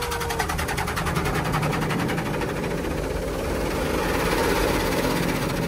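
Automatic car wash equipment working over the car, heard from inside the cabin: a steady, rapid drumming rattle over a low hum, a little louder about four to five seconds in.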